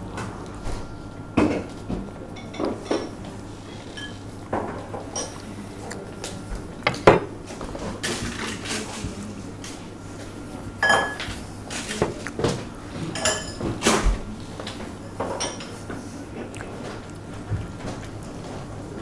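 Tableware clatter: a spoon clinking and scraping against a glass dessert jar, with scattered knocks of dishes and cutlery and a few short ringing clinks, over a steady low hum.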